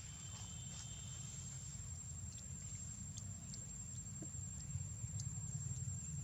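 Quiet outdoor background: a steady low rumble with a constant thin high-pitched tone and a few faint ticks.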